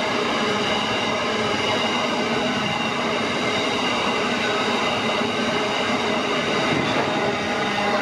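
Coal train's steel hopper wagons rolling past on the rails: a steady rumble and rattle of wheels and wagon bodies, with several steady high-pitched tones ringing over it.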